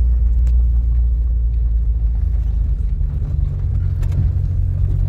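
Car engine and tyres rumbling inside the cabin while driving slowly over a rough dirt road, with a few light rattles. The engine note rises a little about three seconds in.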